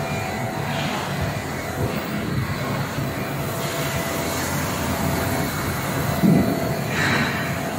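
Rhong RCMC-60A 60 HP air-cooled screw chiller running: a steady mechanical hum from its screw compressor and fans. There is a brief thump about six seconds in.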